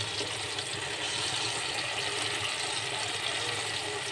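Bananas deep-frying in hot oil in a wok, a steady sizzle with fine crackling.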